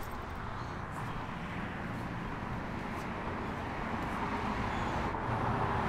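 Steady ambient noise with a low rumble, like traffic or road noise, with no distinct events.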